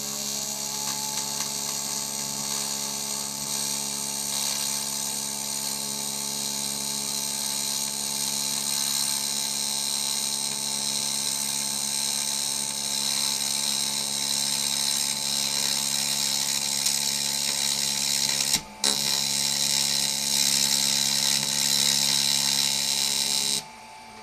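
AC TIG welding arc on aluminium from a Fronius MagicWave 2200: a steady buzzing hum with a strong hiss. It breaks off for a moment about three quarters of the way through, then stops shortly before the end.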